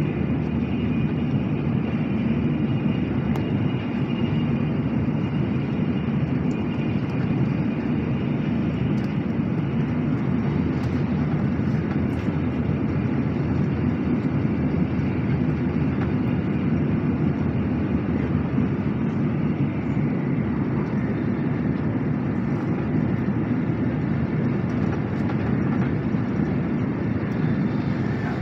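Steady low rumble of a Nozomi Shinkansen bullet train running at high speed, heard from inside the passenger cabin.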